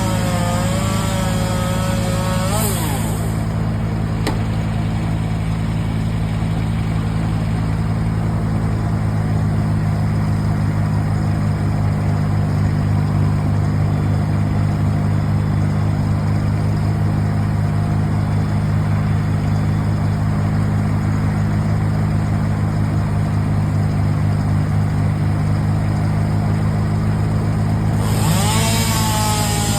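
An engine running steadily at constant speed, a low even drone. A higher, wavering whine with a hiss comes in briefly near the start and again near the end.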